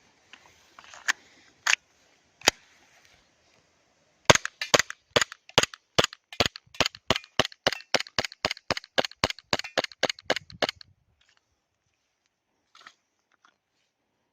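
Umarex Glock 19 green-gas airsoft pistol firing: a few single sharp pops, then a rapid string of about twenty shots, roughly three a second, that stops about three quarters of the way through.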